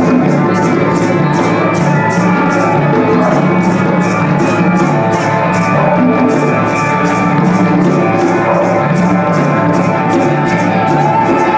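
Live percussion ensemble music: a shaker keeps an even pulse of about four strokes a second over hand drums and pitched instrument lines.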